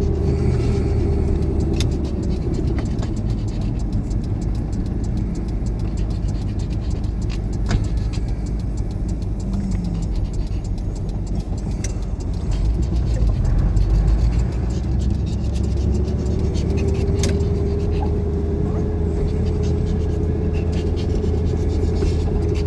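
A truck driving on the road: a steady low engine and road rumble with a faint whine that fades out a couple of seconds in and comes back about two-thirds of the way through.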